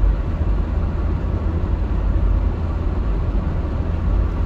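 Steady low road rumble and engine noise of a car cruising, heard from inside the cabin, with no sudden events.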